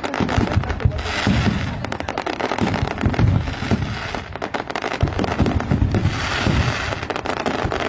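Fireworks display: aerial shells bursting one after another, with rapid crackling over repeated low booms.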